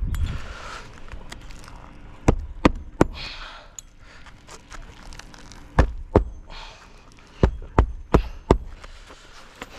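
Roofing nails being hammered into an asphalt shingle: three sharp hammer strikes, then two, then four quick ones about a third of a second apart. Faint rustling of shingles between the groups.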